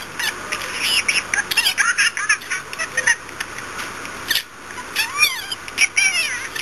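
Budgerigar chattering: a rapid run of warbling chirps, clicks and short whistled notes that slide up and down, with a brief pause partway through.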